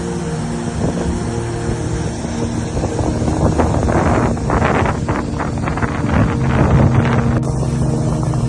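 Wind gusting against the microphone over a steady rushing noise, with background music underneath; the gusts die down and the music comes through clearly near the end.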